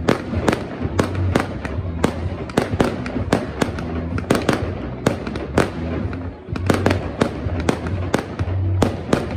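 Fireworks display: aerial shells and crackers going off in rapid succession, about three or four sharp bangs a second throughout, with no let-up.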